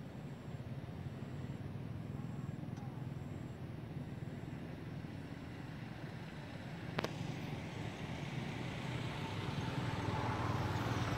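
Low, steady rumble of a motor vehicle's engine, growing louder toward the end as it comes closer. A single sharp click about seven seconds in.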